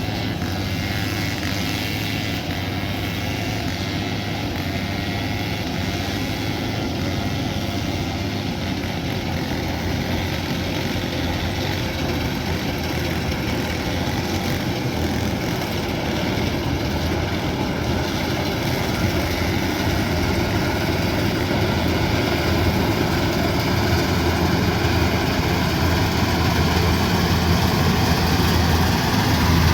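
Kubota DC108X combine harvester's diesel engine and machinery running steadily at working speed, a continuous drone that slowly grows louder.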